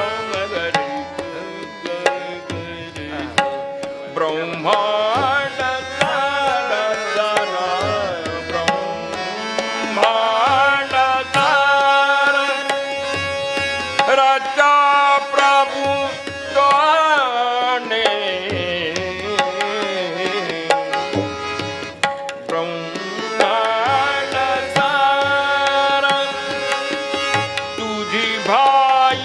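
Hindustani classical vocal music: a male singer's gliding, ornamented melodic lines, accompanied by tabla strokes and a steady harmonium and tanpura drone.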